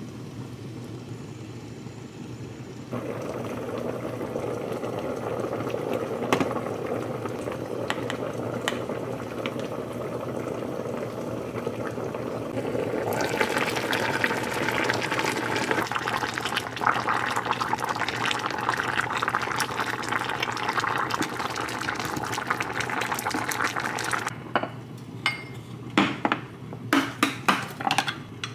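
A pot of braised mackerel in red chili sauce simmering and bubbling, louder and brighter once the lid comes off about halfway through. Near the end come a few sharp clinks of dishes and a plastic container lid.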